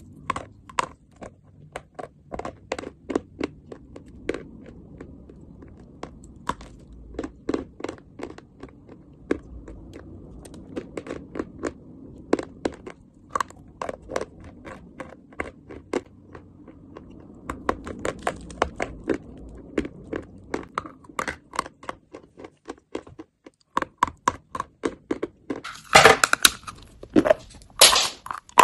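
Sticks of white school chalk being bitten and chewed: a fast run of crunches, several a second. After a short break near the end, louder sharp bites snap pieces off a fresh stick.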